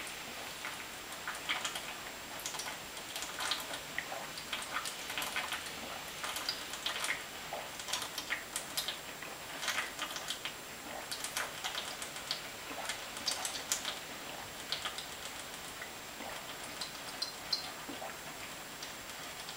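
Malt liquor being chugged nonstop from a 40-ounce glass bottle: irregular wet gulps and swallowing clicks, several a second, with the beer glugging out of the upturned bottle.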